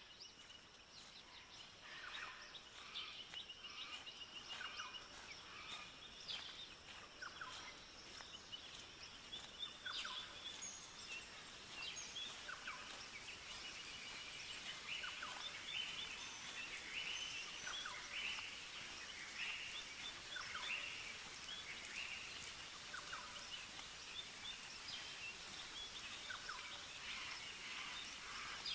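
Birds chirping and calling, many short repeated calls and stuttering trills, over a faint steady hiss.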